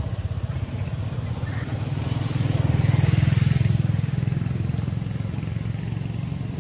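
A passing motor vehicle's engine running with a low pulsing rumble and a hiss, growing louder to a peak a little past the middle and then fading.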